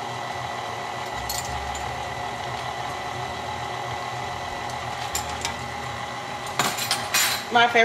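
KitchenAid Classic stand mixer running steadily, its flat beater creaming soft cookie dough in a stainless steel bowl, with a steady motor hum. Near the end a brief clatter of clinks cuts in over the hum.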